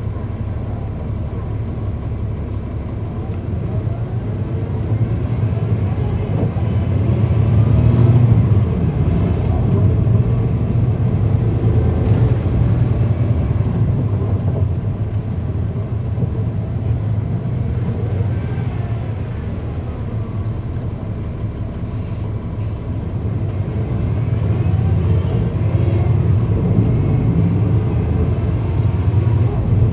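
On-board sound of a 2010 NABI 40-SFW transit bus's Cummins ISL9 inline-six diesel engine, with its engine cooling fans running. The engine note rises and falls as the bus pulls and eases off, loudest about eight seconds in and again near the end.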